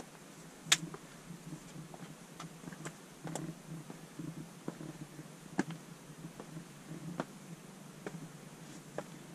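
A hiker's steps and scrambling on rock: irregular clicks and knocks of boots and hands on stone over a steady rustle, the sharpest knock about a second in.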